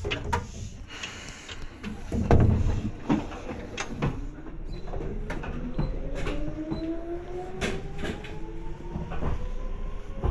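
Seibu 2000 series electric train pulling away, its traction motors whining in a tone that rises steadily from about four seconds in, over a running rumble with sharp clicks from the wheels and rail joints. A heavy thud comes about two seconds in.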